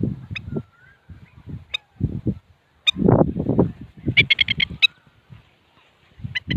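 Adult birds giving sharp, high alarm chirps, scattered at first and then a quick run of about six around the middle, the scolding of parents guarding a fledgling. Low rumbling bursts come and go underneath, loudest just after the halfway mark.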